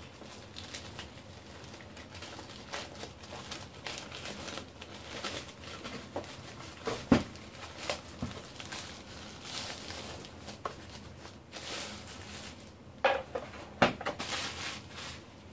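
Soft protective packing bag rustling and crinkling as it is worked off a wireless router by hand, with scattered light knocks of the router against the bag and table, the loudest about seven seconds in and two more near the end.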